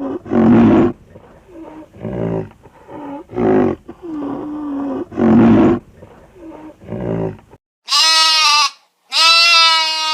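A big cat calling in a series of rough roars about a second and a half apart, with quieter rasping breaths between them. Near the end it gives way to a different animal giving two long, clear bleats.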